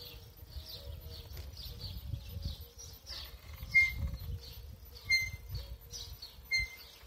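Mobility scooter rolling down over block paving with a low rumble, its brakes giving three short, high squeaks in the second half. Birds chirp in the background.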